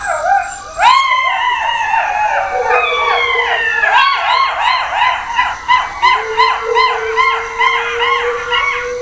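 A group of canines howling together: several long howls glide slowly downward while others give quick, wavering rising-and-falling cries layered over them, and a steadier, lower howl is held through the second half.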